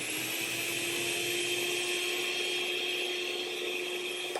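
Electric kitchen mixer running steadily in a bowl of liquid mix, its motor tone holding level, then switched off near the end and winding down.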